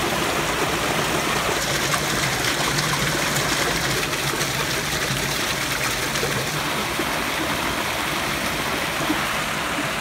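Mountain valley stream rushing steadily, an even, unbroken hiss of water.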